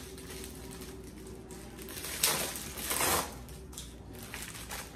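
Plastic mailer envelope being ripped open and rustled by hand, loudest in two crackling bursts a little after two and three seconds in.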